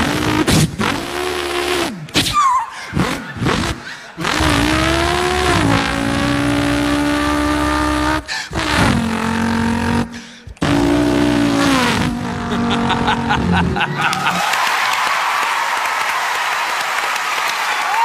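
A man's vocal impression of a V8 car engine, revving and holding revs in several runs with falling pitch drops like gear changes and short breaks for breath. About 14 seconds in, audience applause takes over.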